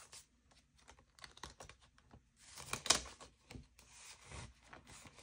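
Paper bills and a cash envelope being handled: quiet rustling with light ticks, loudest about three seconds in.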